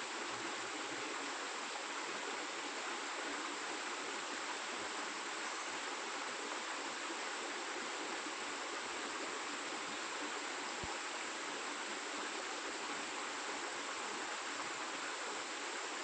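Steady rush of running water from a rainforest waterfall and creek cascades.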